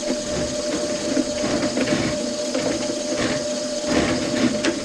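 Motorised drain-cleaning machine working a clogged kitchen sink drain, running with a steady whine and a rough rattle, with a few sharp knocks.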